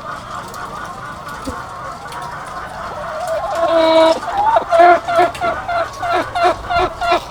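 A flock of egg-laying hens clucking. About halfway in, one hen close by breaks into loud calls: a held note, then a steady run of short, repeated clucks, about three a second.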